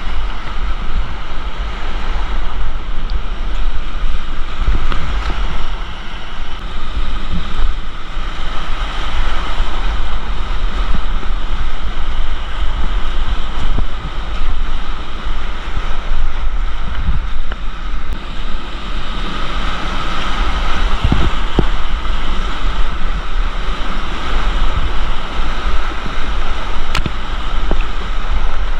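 Steady rush of creek whitewater, with low rumble from wind and water buffeting the microphone and a few faint knocks.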